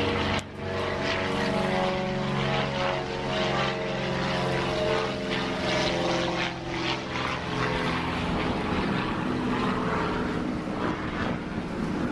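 An engine running steadily, a drone of several pitched tones that drift slightly up and down, with a brief knock about half a second in.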